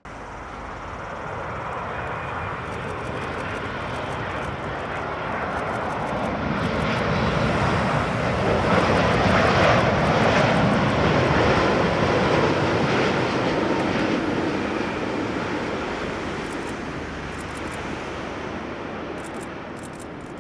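Boeing 787 airliner's jet engines as it passes by, the roar swelling to its loudest about halfway through and then fading away.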